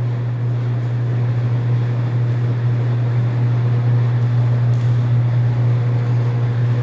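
BWS-80 HD industrial wire stripping machine running steadily with a strong, even low hum.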